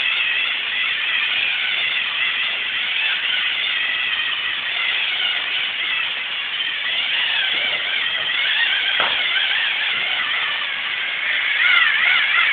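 LEGO Mindstorms NXT servo motors whining, the pitch wavering up and down constantly as the line-following robot keeps correcting its steering.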